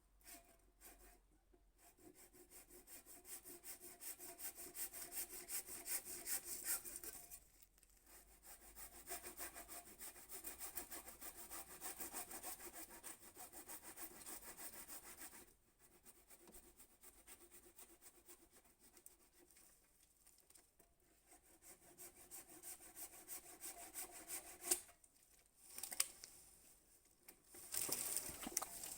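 A new Bahco Superior handsaw cutting through freshly cut wood with steady back-and-forth strokes, in several long runs broken by short pauses.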